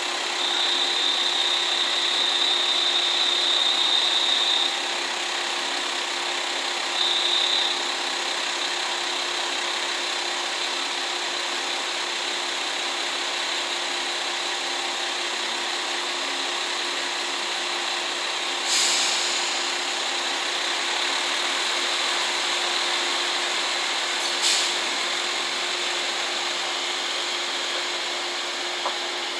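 Diesel engines of a JR Shikoku 2000 series tilting express train running as it moves slowly along the platform, over a steady low hum. A high steady whine stops about five seconds in and comes back briefly near seven seconds, and two short sharp hisses come near 19 and 24 seconds.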